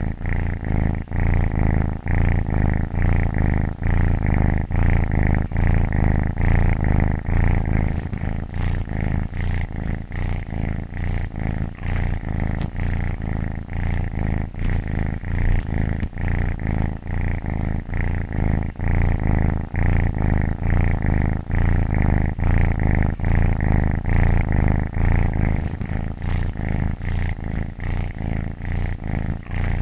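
Domestic cat purring steadily and close up, a continuous low rumble that swells and dips in an even rhythm of about one to two cycles a second as the cat breathes in and out.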